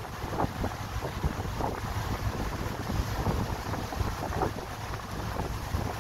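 Wind buffeting the microphone on a moving boat, over a steady low rumble and the wash of open lake water, with irregular gusts.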